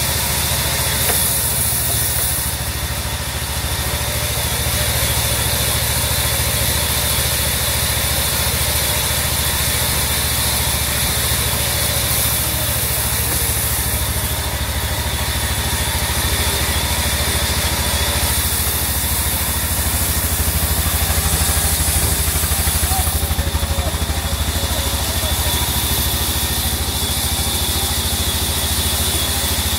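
Large band sawmill running steadily, its blade cutting lengthwise through a teak log. It makes an unbroken mechanical noise over a low hum, a little louder for a few seconds after the middle.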